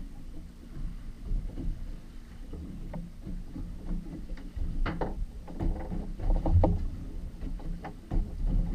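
Sounds of a boat at sea: water lapping against the hull and a low uneven rumble, with scattered knocks and clicks, the loudest about five and about six and a half seconds in.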